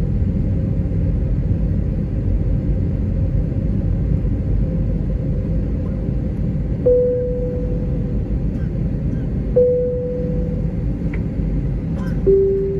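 Steady low rumble of an Airbus A321-232's cabin, heard from inside with its IAE V2500 engines running on the ground before takeoff. Over it come two short tones about seven and ten seconds in, and a lower one near the end.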